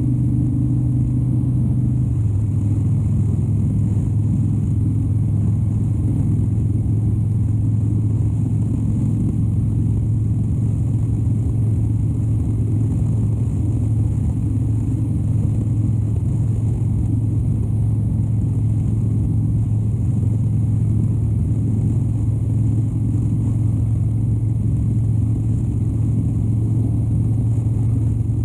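2013 Harley-Davidson Dyna Wide Glide's 103-cubic-inch V-twin running steadily while riding, its pitch easing down slightly about two seconds in and then holding even.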